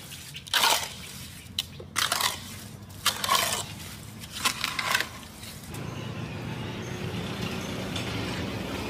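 Trowel scraping and scooping wet, gritty cement mortar in a metal basin: four rasping strokes about a second apart. After about six seconds they stop and a steady low background noise is left.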